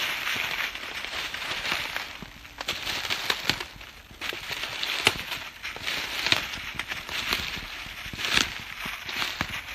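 Footsteps and rustling through dry leaves and undergrowth, uneven, with scattered sharp clicks and snaps.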